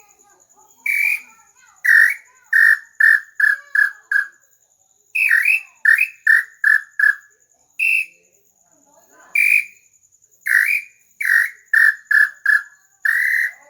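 Hand-made bird-call whistle (pio) blown in repeated phrases: each opens with a higher whistled note, followed by a run of short, slightly lower notes at about three a second. The call is unfinished and has no ball fitted, so it gives only this one call.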